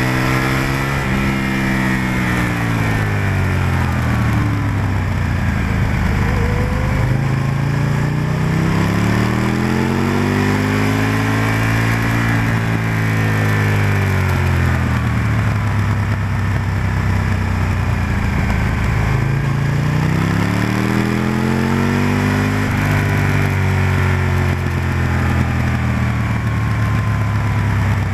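Aprilia RSV-R's V-twin engine at full track pace, its note climbing and falling about three times as the rider accelerates and brakes through corners, over a steady rush of wind.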